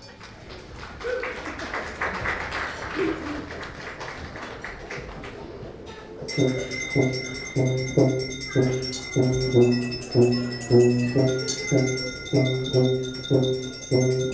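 Live chamber music from a small ensemble with violin and tuba. It opens with a soft, noisy passage for about six seconds. Then sustained high ringing tones set in over a low pulsing accompaniment, about two beats a second.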